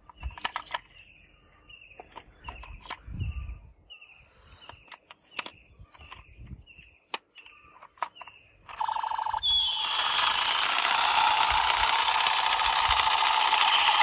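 Small plastic clicks and taps as batteries are fitted into a toy pistol, with a bird chirping over and over in the background. About nine seconds in, the battery-powered toy pistol's sound effect switches on: a loud, continuous buzzing rattle with electronic tones.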